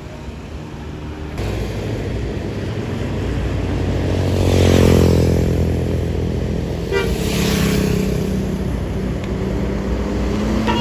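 A bus's diesel engine approaches and passes close by. It grows louder to a peak about halfway through, and its pitch drops as it goes past. Near the end another heavy vehicle's engine rises in pitch as it speeds up or draws near.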